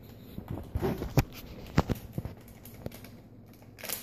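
Small foil blind bag crinkled and torn open by hand: a string of sharp crackles and rips, loudest a little over a second in and again just before two seconds.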